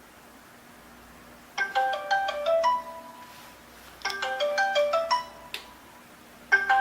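Phone ringtone for an incoming call: a quick run of chiming notes ending on a held note, heard twice and starting a third time near the end.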